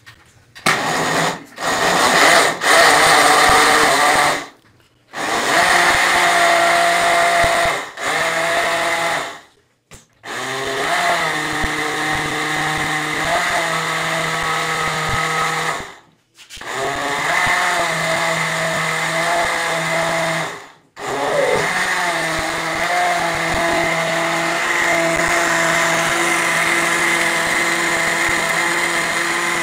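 Electric countertop blender running and mixing a thick, creamy liquid, switched on and off several times: short pulses at first, then longer runs broken by about four brief stops, running without a break for the last several seconds. Its motor hum dips and settles a little as it takes up the load.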